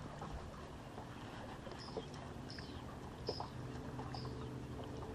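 Bass boat's electric trolling motor humming faintly and steadily, with a few short, high, falling squeaks and light knocks scattered through.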